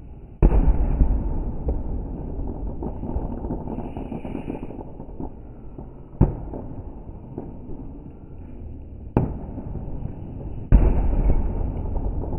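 Fireworks exploding: four bangs. The first, about half a second in, and the last, near the end, are the biggest and trail off in a long rumble; sharper single bangs come around the middle and a little later, with scattered crackles in between.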